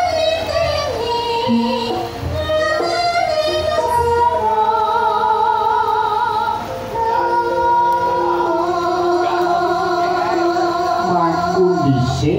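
Music with a woman singing long held notes, some of them wavering.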